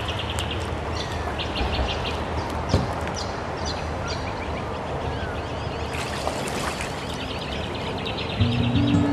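Birds calling in several bursts of quick repeated high notes over a steady background hiss, with the wash of kayak paddle strokes in the water. A single knock comes near the three-second mark, and acoustic guitar music comes in near the end.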